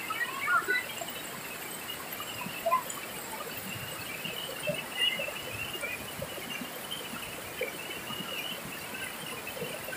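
Rushing white water pouring over a wide, low rocky cascade: a steady rush. Many short, high chirps and squeaks are scattered over it.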